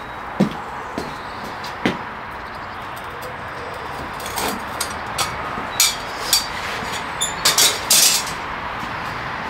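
A steady rushing hiss with about a dozen sharp knocks and clicks: three spaced out in the first two seconds, then a quicker run of them in the second half.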